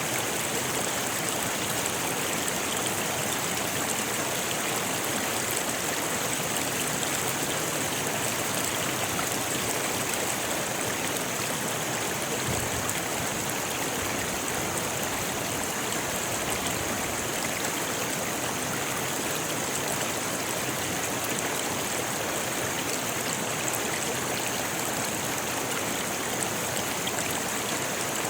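River running over rocks in a steady rush of water, with no distinct splashes or changes.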